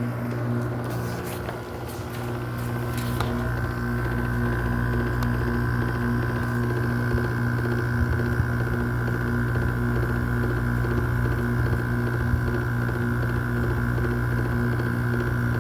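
RA51k window air conditioner running with a steady low hum. A few clicks come about two seconds in, then it grows louder as a steady higher whine joins and holds.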